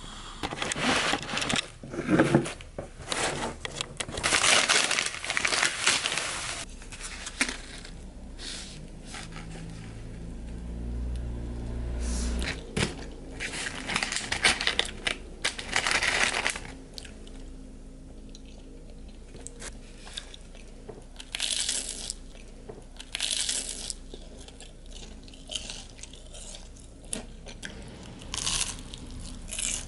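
Paper and plastic takeout wrapping crinkling and rustling in bursts as fried snacks are handled, with a low hum for a few seconds in the middle and a few short crunches later on.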